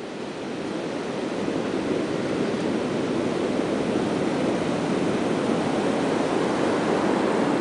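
Ocean surf breaking on the shore, a steady rush that swells over the first second or two and then holds level.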